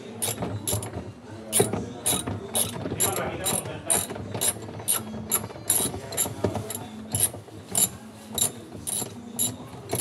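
Ratchet wrench clicking steadily, about three clicks a second, as it turns the centre bolt of a Samsung top-load washer's pulsator.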